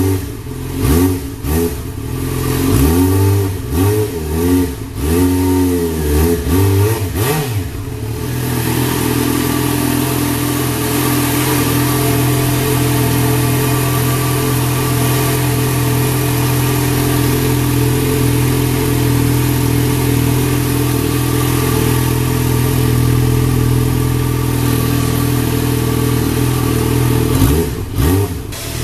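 Yamaha XJ6-F's 600 cc inline-four running through a Mivv Double twin slip-on exhaust: a series of quick throttle blips, rising and falling in pitch, then a steady idle, with a couple more short revs near the end.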